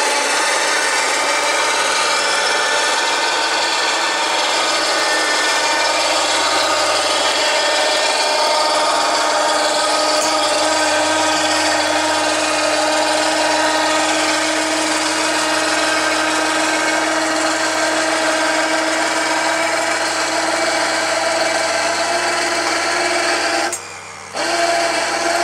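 An electric motor running steadily under load, sounding as a set of level tones. It cuts out briefly near the end and then starts again.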